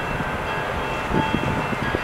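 Canadian Pacific freight train passing close by, led by diesel locomotives: a steady low rumble with irregular knocks from the wheels, and a faint steady high whine over it.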